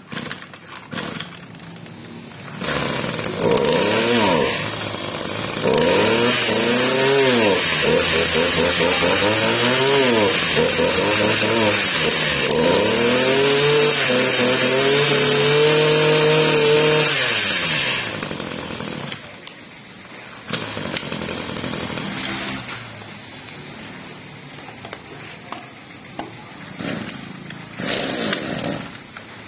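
Small Kioritz Echo two-stroke brush cutter engine running, revved up and down repeatedly with the throttle trigger for about fifteen seconds, then dropping back to idle with a couple of short blips.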